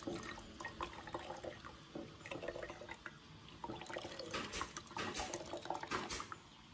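Water draining and dripping from a clump of soaked moss squeezed by hand into a glass jar of liquid, with irregular splashes that are heaviest from about four to six seconds in.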